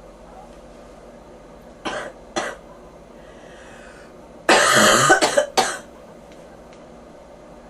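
A person with bronchitis coughing: two short coughs about two seconds in, then a louder run of several coughs in quick succession a couple of seconds later.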